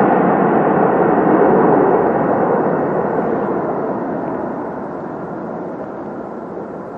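Jet engine noise of a twin-engine widebody airliner rolling down the runway, a steady rush that fades gradually as the aircraft moves away.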